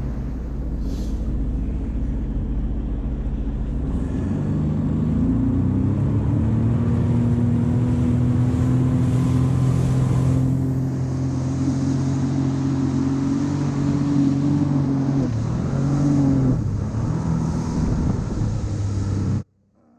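Jet ski engine running under way, revving up about four seconds in and holding a steady pitch, then easing off and picking up again twice near the end, over a hiss of rushing water. The sound cuts out abruptly just before the end.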